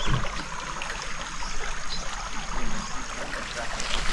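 River water flowing, a steady hiss, with a thin high steady whine that stops about three seconds in and a few faint chirps.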